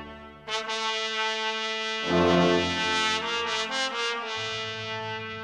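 Background music of held chords that change a few times.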